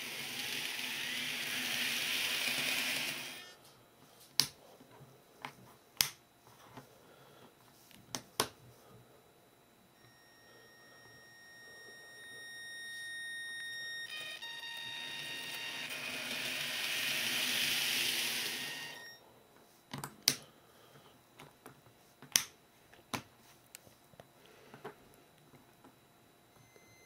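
A B-Train Shorty model train running on N-gauge track, its running noise swelling as it comes close and fading as it moves away, twice. Through it its motor gives off steady whining tones, which the homemade PWM controller drives into the motor to imitate a real train's VVVF inverter sound. Sharp single clicks come between the two passes and after the second.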